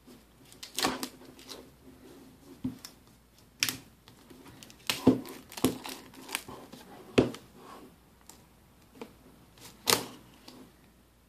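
Clear plastic shrink wrap being cut and peeled off a cardboard box by hand: irregular crinkling with scattered sharp crackles, the loudest about five and ten seconds in.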